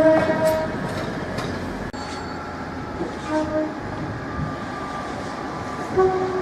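Train horn sounding a short blast at the start, a brief toot about three seconds in and another near the end, over the steady running noise of a train.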